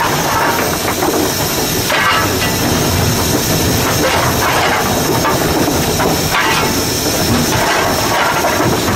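Cab noise of GNR N2 steam tank locomotive No. 1744 under way: a loud, steady rush of steam and running noise with rail clatter and recurring louder surges.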